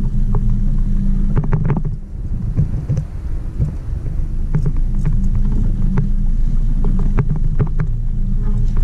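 Small boat's outboard motor running steadily, a low even hum, with scattered clicks and knocks on the boat.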